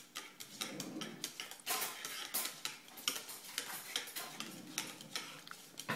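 A utensil beating raw eggs in a stainless steel mixing bowl, knocking and scraping against the metal in quick, irregular clicks.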